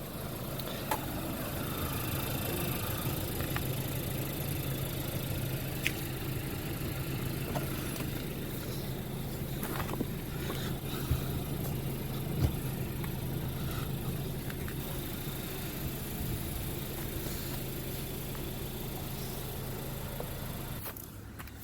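A 2016 Honda Fit's four-cylinder engine idling steadily, with a few light knocks over it. The engine shuts off about a second before the end.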